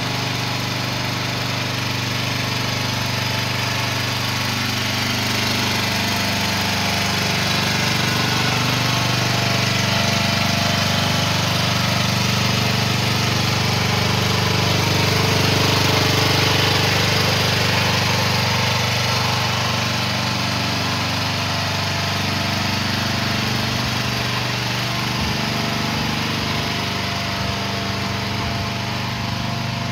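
AGT Industrial MX12R mini excavator's small engine idling steadily, a little louder around the middle.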